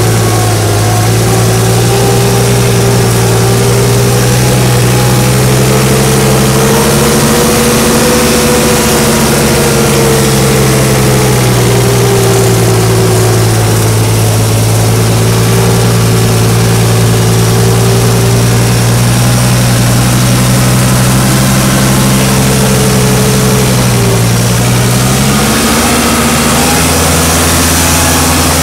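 Diesel engine running under load, loud and steady. Its pitch rises a little about eight seconds in and eases back, then dips and shifts again about twenty-five seconds in.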